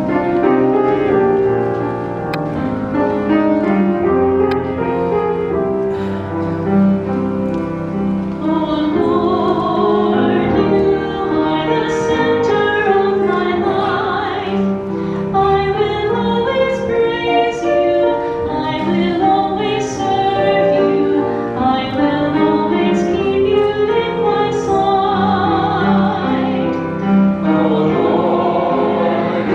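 Choir singing slowly in long held chords, with a high voice's vibrato standing out at times.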